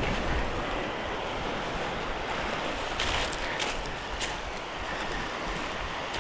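Wind buffeting a bike-mounted camera's microphone over the steady rolling noise of a drop-bar bicycle's narrow tyres on a track of dried seaweed, sand and gravel. A few sharp clicks come about three to four seconds in.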